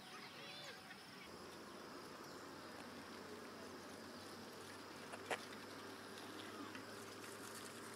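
Faint outdoor ambience of insects buzzing, with a few short chirps near the start and one sharp click about five seconds in.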